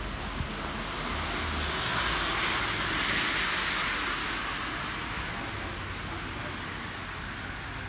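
A car passing on the wet road, its tyres hissing on the wet asphalt: the hiss swells about two seconds in, peaks around three seconds, and fades away, over a low steady traffic rumble.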